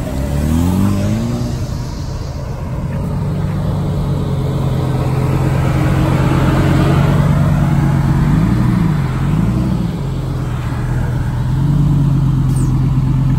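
Car engine running hard: the pitch climbs over the first second or so, then holds steady, with two quick dips and rises in pitch about eight and a half seconds in.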